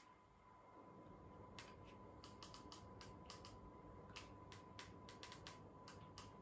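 Faint, short clicks, a few a second, starting about a second and a half in, from stepping through a TV box's settings menu with the remote, one click per press.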